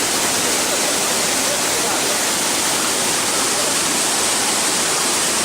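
Waterfall pouring into a pool, a steady, loud rush of falling water.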